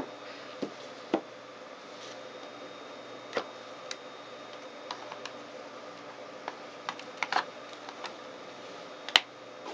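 A collapsible rigid paperboard gift box being handled: scattered light taps and clicks as its lid is opened and its walls are folded down flat, with a sharper knock near the end. A steady faint hum sits underneath.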